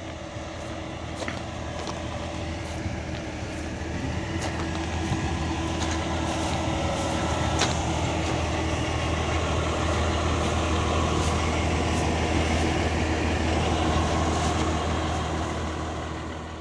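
Diesel engine of a railway track maintenance machine running steadily, growing louder over the first several seconds, with occasional sharp clicks.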